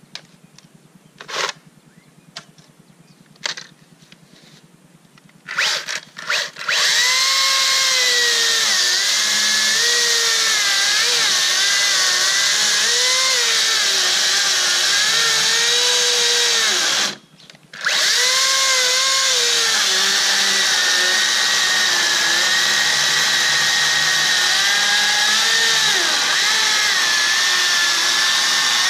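Makita DUC353 36-volt brushless cordless chainsaw: a few knocks, then short trigger blips about six seconds in, then the electric motor whining steadily, its pitch dipping and wavering as the chain cuts through a log. It stops for half a second about halfway through, then runs and cuts again.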